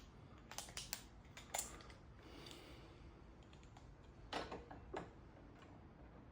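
Faint scattered clicks and a soft scrape of a metal quill stem adapter being slid into the bike's steerer tube to test the fit.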